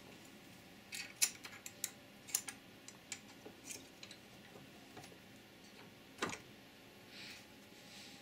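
Light metallic clicks and taps as a thin metal strip is set between the jaws of a bench vise and the vise handle is turned. There is a quick run of clicks in the first few seconds and one louder clack about six seconds in.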